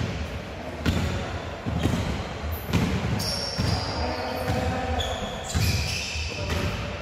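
A basketball bouncing on a court floor, thudding roughly once a second. Short high squeaks join in from about three seconds in.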